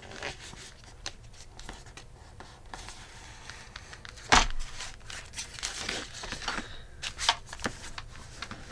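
Paper and cardstock being handled and folded, with rustling and crinkling and a sharp tap about four seconds in.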